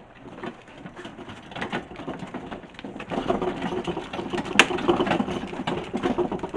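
Rapid, irregular clattering and rattling that grows louder over the first few seconds, with one sharp knock about four and a half seconds in.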